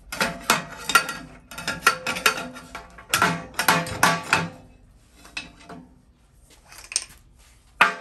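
Clinking and rattling of metal as the inner steering shaft of a Chevrolet-style tilt steering column is pulled out through the column tube. It is dense for the first four seconds or so, then comes as sparse clicks, with one sharp ringing clank of a cast metal housing set down on a steel bench near the end.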